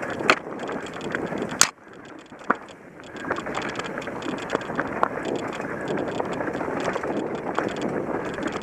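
Mountain bike rolling fast over a rocky dirt trail: tyre noise and a steady rattle of chain and frame, with many sharp clacks of parts and stones striking. Two loud knocks come in the first two seconds, then it goes quieter for about a second before the rattle picks up again.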